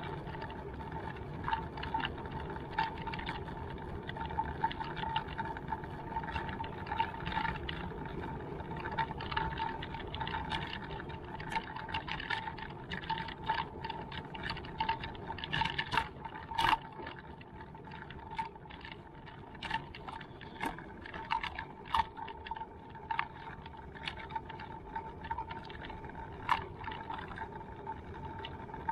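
Wheels rolling along a paved path, with a steady high whine and a haze of low rolling noise, broken by frequent small clicks and knocks. A few of the knocks are sharper, about two-thirds of the way through.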